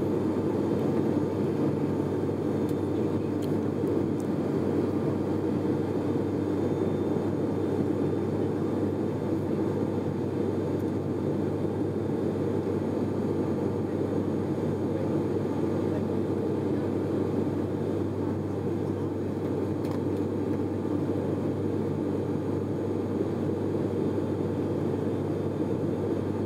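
ATR 72-500's twin turboprop engines and propellers running with a steady, unchanging drone.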